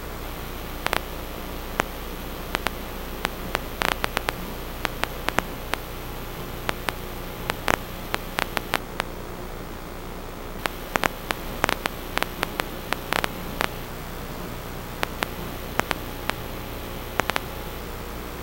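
Steady static hiss with a faint low hum, broken by irregular sharp crackling clicks, in clusters.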